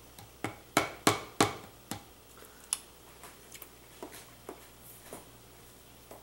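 Metal teaspoon clicking against a plastic tub of barbecue sauce while it is stirred and tapped: five sharp clicks in the first two seconds, then a few fainter ticks.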